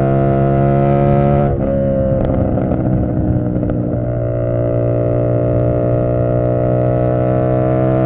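Tuned CFMoto 450SS parallel-twin motorcycle engine heard on board while cruising. About a second and a half in the throttle is briefly rolled off, the pitch dips and the exhaust turns rough and crackly for a couple of seconds. Then it settles into a steady drone, with revs rising slowly.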